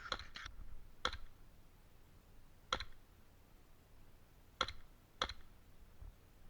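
Airsoft guns firing single shots: five sharp, faint pops at irregular intervals.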